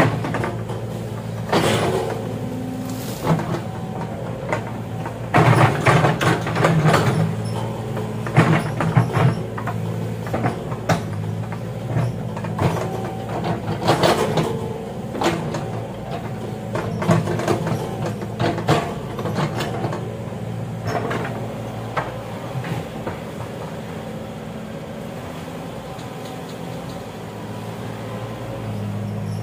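Excavator's diesel engine running steadily, with frequent irregular clanks and knocks from the machine at work that thin out near the end.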